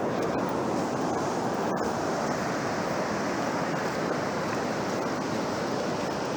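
Ocean surf washing up the beach, a steady rushing noise with no pauses.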